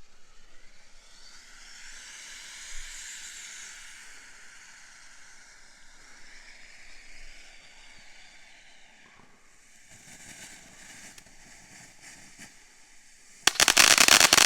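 A consumer novelty firework hissing steadily as it burns, with a few faint crackles creeping in. About a second before the end it breaks into loud, dense crackling from its crackling balls.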